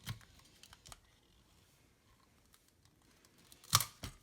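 A few sharp clicks and knocks from a car speaker being handled on a workbench, likely its wire terminals being unplugged; the two loudest come close together near the end.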